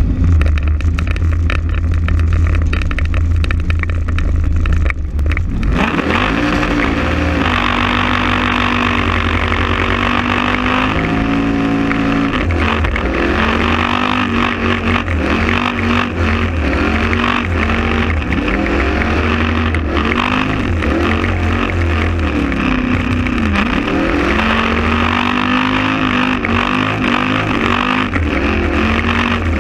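LS3 V8 car doing a burnout. The engine runs low at first, then from about six seconds in it is revved hard and held at high revs, its pitch rising and falling, over the steady screech of the spinning rear tyres.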